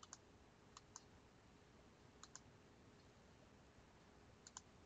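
Faint computer mouse clicks, coming in quick pairs about four times, over near-silent room tone.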